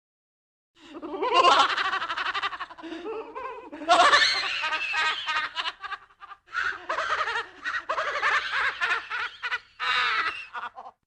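Spooky horror-style laugh sound effect: a voice laughing in quick repeated bursts. It starts about a second in, breaks off briefly past the middle, then resumes and cuts off suddenly near the end.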